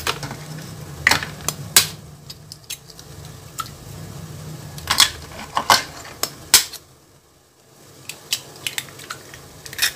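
Eggs being cracked on the rim of a mixing bowl: a series of sharp taps and shell cracks, a few clustered together, then quieter for a moment near the end.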